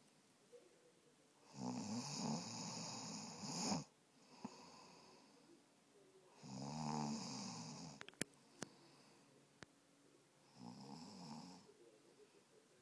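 Snoring: three snores, each one to two seconds long, about four seconds apart, with a few sharp clicks shortly after the second.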